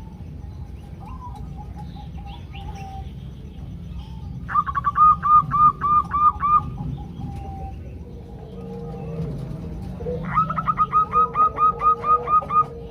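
Zebra doves (perkutut) calling in two bouts of quick, evenly repeated notes, the second bout a little longer, over a low steady hum. The calls are presented as a female calling to males, used to lure males into calling.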